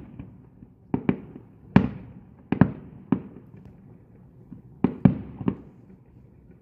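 Aerial firework shells bursting in a display: about ten sharp bangs at irregular spacing, some in quick pairs, each trailing off in a short rumble.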